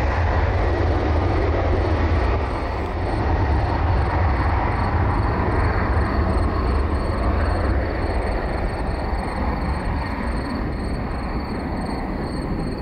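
Deep, continuous roar of the Tupolev Tu-154B-2's three Kuznetsov NK-8 turbofan engines at takeoff power, easing slowly as the jet departs.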